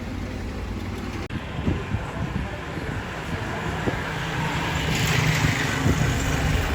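Motor vehicle running with a steady low rumble and road noise, growing a little louder after the middle.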